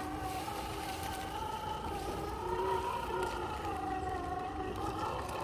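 Electric drive whine of an RC crawler's Hobbywing Fusion 1800kv brushless motor, its pitch rising and falling gently with the throttle as the truck crawls.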